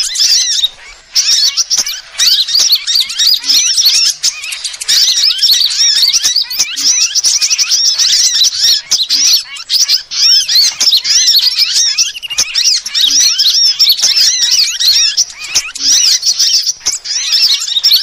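Dense, fast, high-pitched chirping and twittering of many small birds overlapping without a break: a bird-lure recording of sunbird calls.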